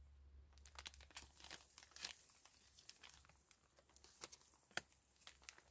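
Faint, irregular scraping and crackling of a knife stripping the outer bark from a chinaberry branch, girdling it for an air layer.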